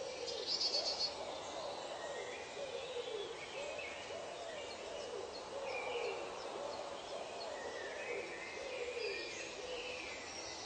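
Birds calling in a forest: a low call that rises and falls, repeated about once a second, under higher chirps and twitters, with a brief rapid trill about a second in, over a steady hiss of background ambience.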